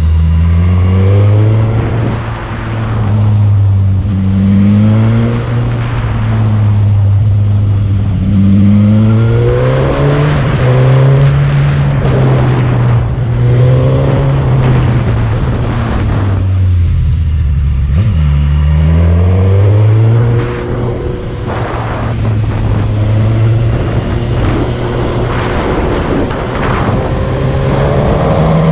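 Motorcycle engine under way uphill, its revs climbing and dropping back again and again through the bends, with a deeper drop and pick-up a little past the middle.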